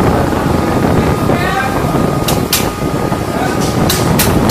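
Steady wind rushing over the microphone with a low rumble, broken by a few sharp metallic clicks, two about two and a half seconds in and two more near the end, from hand work in an open tank engine compartment.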